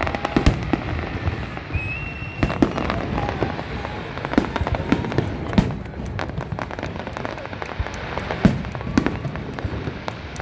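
Aerial fireworks going off: a steady run of irregular sharp bangs and crackles, several a second.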